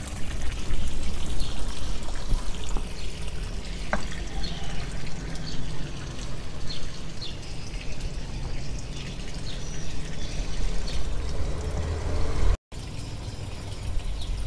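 Filtered water pouring from the outlet pipe of a koi pond's four-chamber filter box and splashing down onto the pond surface: a steady splash and trickle with a low rumble underneath. The sound cuts out for an instant near the end, then resumes.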